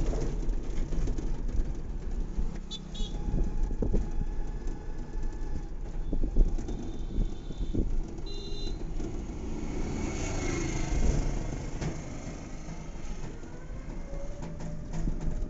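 Wind and road rumble inside a moving three-wheeled rickshaw, with scattered knocks and rattles from the body over the road surface.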